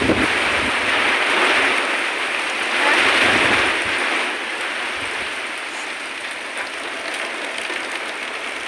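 Heavy rain pouring down in gusty wind: a dense hiss that swells twice in the first few seconds, with low rumbles under the gusts, then eases to a steadier downpour.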